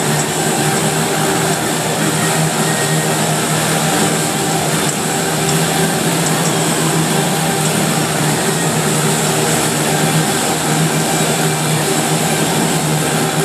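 Eight motorcycles riding at once inside a steel-mesh globe of death, their engines together making a loud, steady, dense drone.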